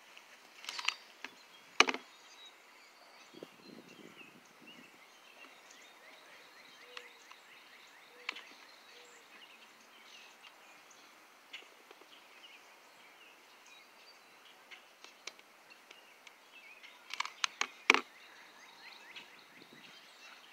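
Faint outdoor background with scattered sharp clicks and taps as a hot glue gun and a rhinestone chain trim are handled against a lampshade. One loud click comes about two seconds in, and a quick run of clicks comes near the end.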